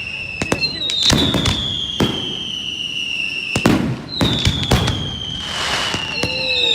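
Fireworks display: sharp bangs scattered through, with two long high whistles, each sliding slowly down in pitch over about three seconds.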